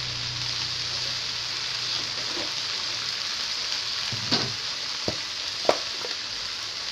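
Bayam greens sizzling steadily in an oiled wok over a high gas flame, with a few short knocks about four, five and six seconds in as containers are handled.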